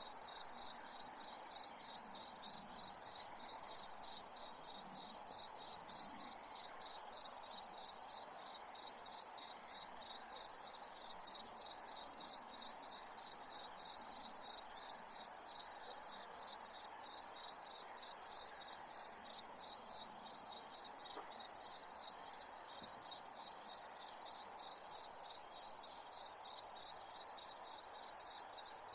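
A cricket chirping without pause at night: a high-pitched chirp repeated evenly, about three times a second.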